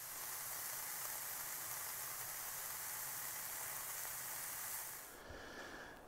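Shredded pork carnitas sizzling in a frying pan: a steady hiss that fades out about five seconds in.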